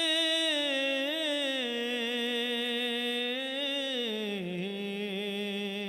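A man sings an Urdu naat without accompaniment into a microphone. He holds one long note that winds slowly down in pitch in a few steps.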